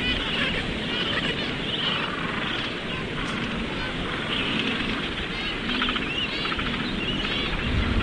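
A colony of gentoo penguins calling, many honking, braying calls overlapping, over a low steady rumble of wind on the microphone.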